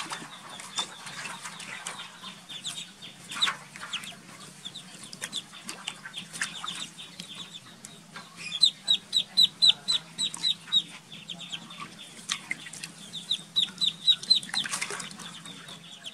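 Ducklings peeping: short, high calls repeated about five times a second in runs, loudest about nine seconds in and again near the end, with a few splashes of water in a basin.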